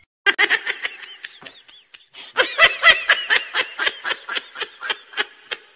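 A person laughing in a long run of short, repeated giggles, softer at first and stronger from about two and a half seconds in.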